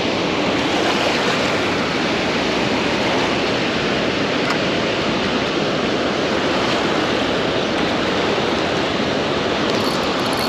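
Dam spillway white water rushing steadily.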